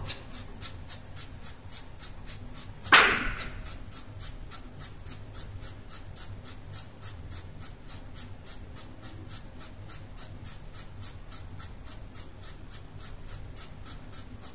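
Surgical scrub brush bristles scratching over soapy fingertips and nails in short one-way strokes, about four a second, as part of a surgical hand scrub. One louder brief sound breaks in about three seconds in.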